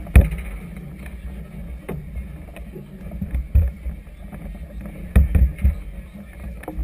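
Strong wind buffeting an action camera's microphone over choppy water, with waves slapping the hull of a moored floating barge. It is an irregular low rumble with sharp thumps, the loudest just after the start and about five seconds in.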